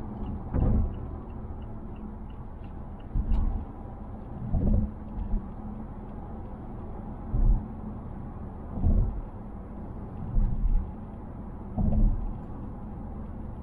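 Steady road and engine rumble inside a 2020 Mazda Atenza's cabin at highway speed. It is broken about seven times by short low thuds as the car goes over bumps. Each jolt of the body brings out rattles inside the cabin.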